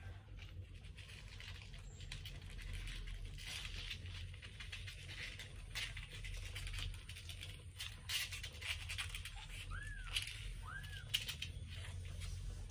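Soft wet licking and rustling from a mother cat grooming her nursing young kittens, over a steady low hum. Near the end a kitten gives two short, high squeaky mews.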